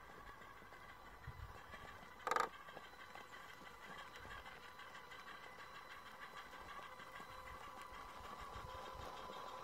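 Electric motor and gearbox of an RC crawler truck whining steadily as it drives down a rocky dirt trail, growing a little louder toward the end as it comes closer. A brief sharp sound about two seconds in.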